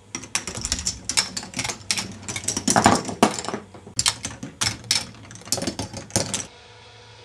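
K'nex ball machine running, with plastic balls and parts rattling and clicking through its tracks and mechanisms in a dense, irregular run of clicks. The clicking stops near the end, leaving a faint steady hum.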